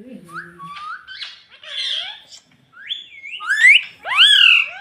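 Ringneck parrot chattering and calling: soft rising chirps and chatter, building into loud sweeping squawks near the end.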